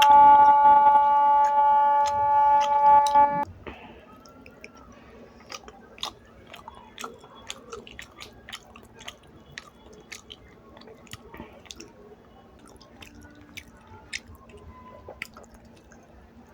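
A loud, steady held tone cuts off abruptly about three and a half seconds in. Close-miked chewing follows: soft smacks, clicks and squishy mouth sounds of someone eating rice and fish curry with their hands.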